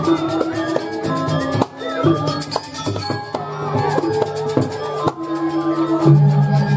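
Balinese gamelan playing a Jauk dance accompaniment: ringing metallophone and gong notes over drum strokes and a fast, even cymbal rhythm. It swells louder about six seconds in.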